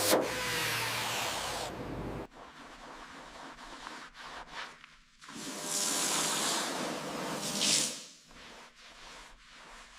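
Hand work on a car in a workshop: a rough rubbing noise, then scattered light clicks and knocks, then a hissing spray-like stretch of about two and a half seconds that swells near its end.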